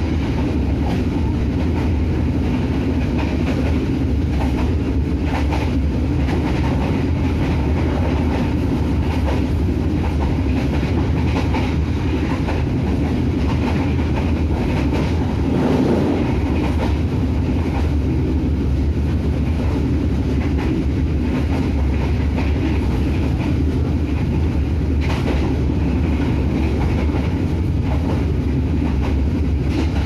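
Steady low rumble of an Indonesian Railways passenger train running, heard from inside the carriage, with occasional faint clacks of the wheels over rail joints.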